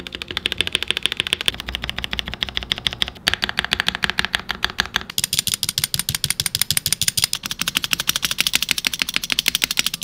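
Keycaps on stabilized keys (spacebar, shift, enter) rapidly pressed over and over, a fast stream of plastic clacks from stock screw-in stabilizers. About five seconds in, the clacks get brighter and sharper when the board changes from a KBD67 Lite R1 with stock Cherry stabs to a D60 Lite with stock KBDFans stabs, which do not come pre-lubed or clipped.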